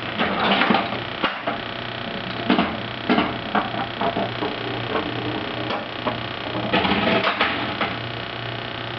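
A low steady hum that drops out briefly now and then, with bursts of clicking and clatter over it: about half a second in, near three seconds, around four seconds, and again near seven seconds.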